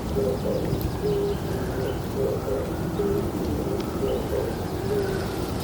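A dove cooing, a series of short low coos repeating over and over, over a steady low background noise.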